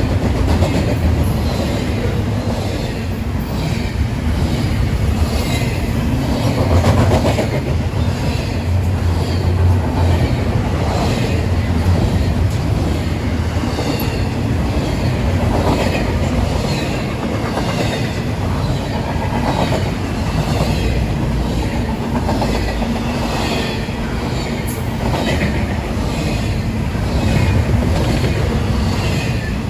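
Train rolling past on the mainline, its wheels clicking over the rail joints in a steady repeating rhythm over a continuous rumble.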